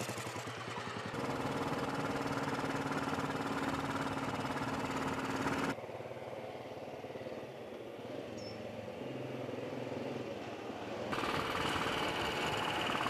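Motorcycle-and-sidecar engine running as the outfit rides along a lane, with a steady engine note. About six seconds in the sound drops to a quieter, duller level as the bike is heard from far off. Near the end it comes back louder and brighter.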